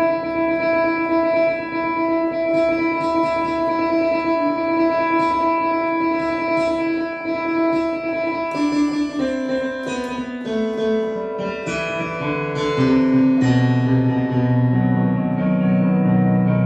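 Digital keyboard being played: a held note rings for about eight seconds under quick, lighter repeated notes, then a run of notes steps downward and settles into low sustained notes.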